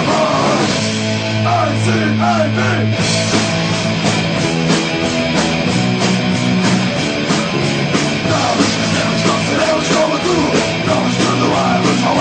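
Punk rock song with a sung vocal over guitars, bass and drums, playing loud and steady.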